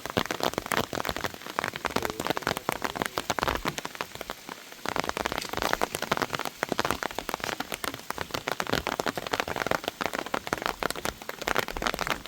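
Heavy rain falling, with a dense, continuous crackle of drops striking close by.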